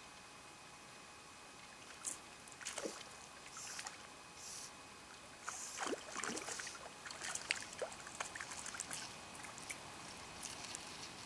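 Small brook trout hooked on a dry fly, splashing at the surface of a still pond: a string of irregular small splashes and drips beginning about two seconds in, busiest around the middle.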